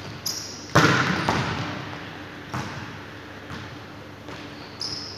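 A ball struck hard on the hall's court floor about a second in, its bang echoing through the large sports hall, followed by lighter knocks of the ball and footfalls. There are also a couple of short high squeaks.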